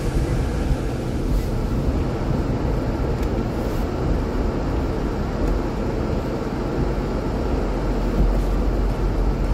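A car driving, with steady road and tyre rumble.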